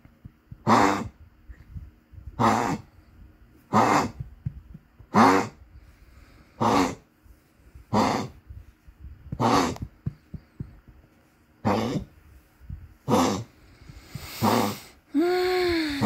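Small dog coughing over and over, about ten coughs each roughly a second and a half apart.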